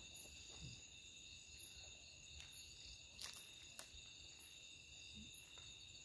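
Faint, steady chorus of night insects, several high-pitched continuous trills layered together. Two brief clicks about half a second apart come a little over three seconds in.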